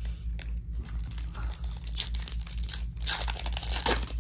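Foil trading-card pack wrapper being torn open and crinkled by hand: crackling starts about a second in, breaks off briefly, then comes back loudest near the end.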